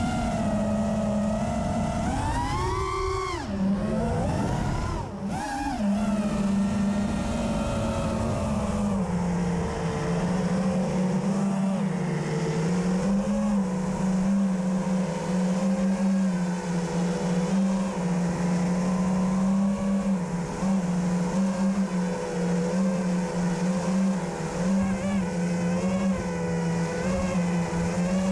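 FPV racing quadcopter's brushless motors and propellers whining steadily, heard from the onboard camera. The pitch swoops up and down twice a few seconds in as the throttle changes, then holds with small wobbles.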